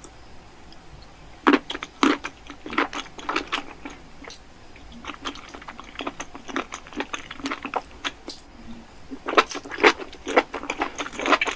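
A person chewing and biting into a burger, with irregular wet mouth clicks and smacks that get busier again near the end.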